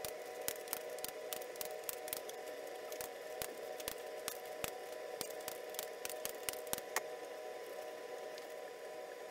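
Hand tools working bolts on a motorcycle engine: sharp metallic clicks and clinks, irregular and several a second, ending about seven seconds in. The bolts being tightened are the timing-belt lock bolts. A faint steady hum runs underneath.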